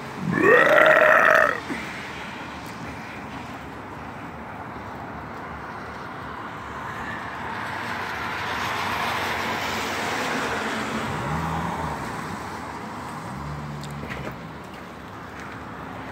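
A car passes on a wet road, its tyre hiss swelling over a few seconds and fading again. About a second in, a loud pitched sound rises sharply and holds for about a second.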